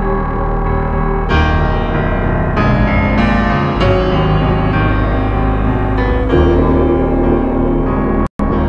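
Background music led by piano over sustained low notes, with the chords changing every second or so. The music breaks off for a moment near the end.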